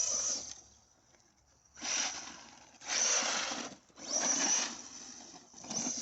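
Arrma Big Rock RC monster truck's brushless electric motor revving in five short bursts of throttle, each a rising whine mixed with a rushing noise.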